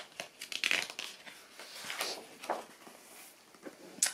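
Paper rustling and crinkling from the pages of a hardback picture book being handled, with a few light clicks.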